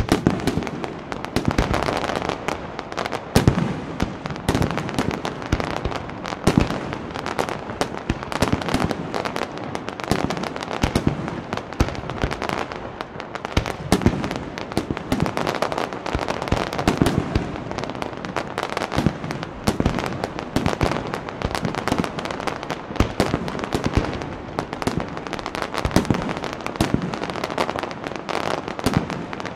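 Fireworks display: a dense, continuous barrage of bangs and crackles that starts suddenly and keeps up without a break.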